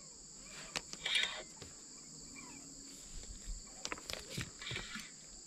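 Steady high-pitched insect chorus, with a few faint clicks and rustles scattered through it.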